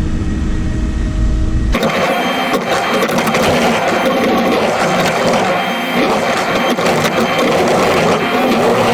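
JCB digger machinery working: a deep low engine hum that switches abruptly, about two seconds in, to a dense, rattling mechanical clatter that runs on steadily.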